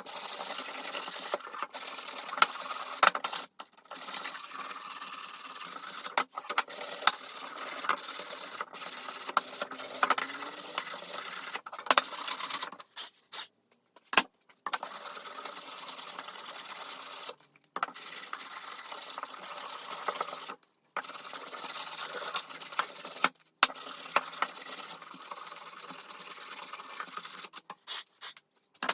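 Sandpaper rubbed back and forth over wood by hand, a steady scratchy rasping in long runs with brief pauses between them and a few light knocks.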